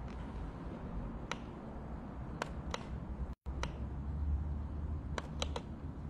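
Several short sharp clicks over a steady low hum, with the audio cutting out completely for a split second about three and a half seconds in.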